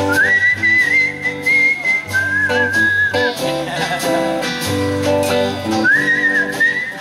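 A whistled melody over a band's electric guitars, bass and drums, as an instrumental break between verses. The whistled phrases start with upward slides and waver with vibrato, and a new phrase begins about six seconds in.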